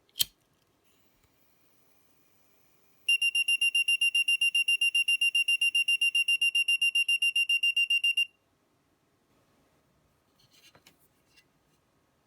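Active piezo buzzer on a homemade LM358 thermistor fire alarm board sounding a high, rapid beeping of about seven beeps a second for about five seconds, starting about three seconds in: the alarm going off because the thermistor has sensed heat above the trimmer's set point. A sharp click comes right at the start, and a few faint clicks near the end.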